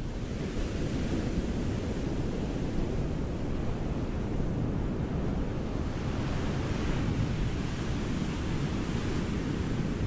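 Ocean surf on a beach: a steady rush of waves, with the hiss of breaking water swelling twice, once about a second in and again in the second half.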